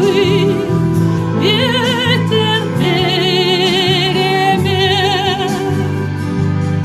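A song playing: a singer holds long notes with wide vibrato over a steady low beat, in three phrases with short breaks between them.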